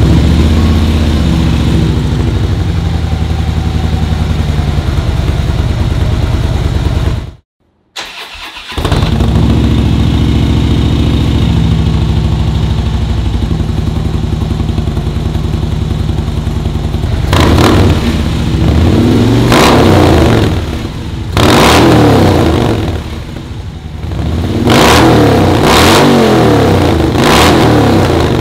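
Harley-Davidson Street Glide V-twin idling steadily through a Vance & Hines 2-into-1 Pro Pipe exhaust, then, after a brief cut, idling through an S&S Sidewinder 2-into-1 exhaust. In the last stretch the throttle is blipped several times, the revs rising and falling sharply.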